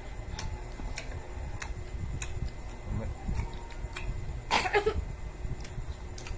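Sounds of people eating sliced mango: sparse small mouth and handling clicks over a low steady rumble, with one short loud noisy burst about four and a half seconds in.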